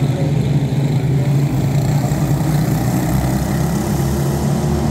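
A pack of quarter midget race cars with single-cylinder Briggs & Stratton Animal engines running together at race speed through a turn, a steady overlapping engine drone.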